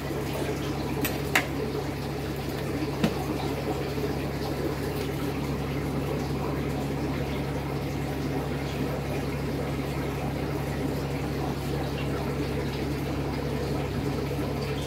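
Aquarium water running and bubbling steadily over a low, even hum from the tank's circulation. There are a couple of faint clicks in the first few seconds.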